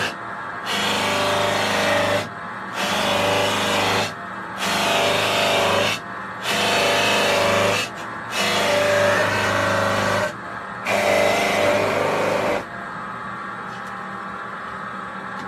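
A lathe running with a steady motor hum while a cutting tool scrapes the spinning workpiece in six passes of about two seconds each, with short breaks between them. The cutting stops a few seconds before the end, leaving only the hum.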